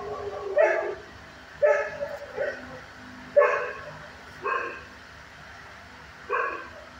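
A dog barking: about six single barks spaced unevenly, roughly a second apart.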